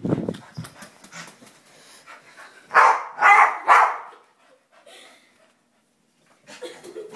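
A dog barking three times in quick succession about three seconds in, with light scuffling and knocks around the barks.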